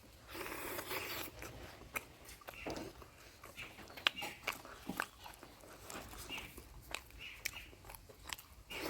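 A person eating mutton curry close to the microphone: wet chewing and biting, with sharp clicks scattered throughout and a longer noisy stretch of chewing in the first second or so.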